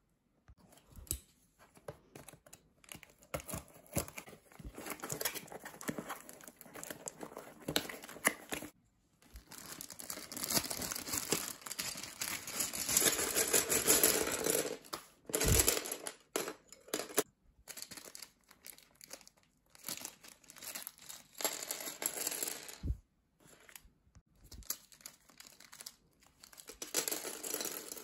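Clear plastic parts bags crinkling and being torn open, with a few knocks of plastic LEGO Technic beams and pieces dropping on a wooden floor. The rustling comes in irregular stretches, loudest in the middle, and breaks off suddenly several times.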